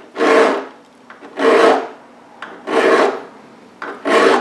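Round chainsaw file rasping through a saw chain's cutter tooth in four even push strokes about 1.3 seconds apart, sharpening the cutting edge.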